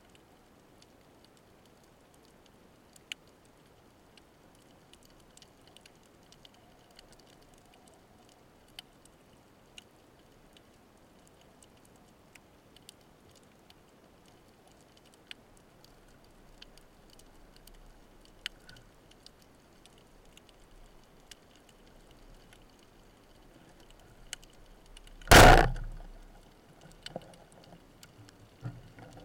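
A wooden speargun fired underwater: one short, loud bang about 25 seconds in as the spear is released. Before the shot there is only quiet underwater background with sparse faint clicks, and a few smaller knocks follow the shot.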